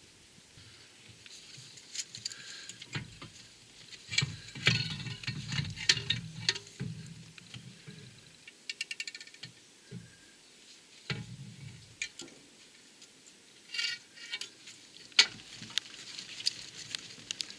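Metal clutch parts and hand tools being handled: scattered clicks, clinks and knocks, with a short run of rapid, evenly spaced clicks about halfway through and another near the end.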